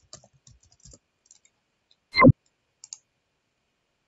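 Computer keyboard typing: a run of light key clicks, then one loud short knock about two seconds in and a couple of small clicks near the end.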